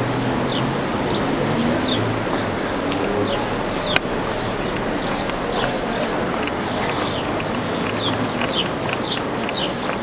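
Many small birds chirping over a steady background hum, the chirps growing dense from about halfway. There is a single sharp click about four seconds in.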